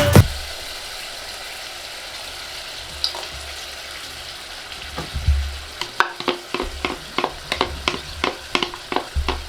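Curry sauce frying in a pan with a steady sizzle. From about six seconds in, a spoon stirs and scrapes against the pan in quick repeated strokes, about three or four a second.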